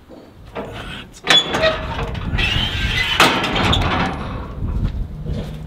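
Metal clanking and scraping as a stowed steel part on the underside of a John Deere 9770 STS combine is yanked and jostled by hand, with a sharp metal bang about three seconds in.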